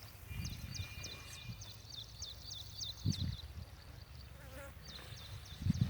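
A quick run of short high chirps, about five a second, from a small animal such as a bird or an insect. It stops about two and a half seconds in and starts again near the end, over a few faint low thuds.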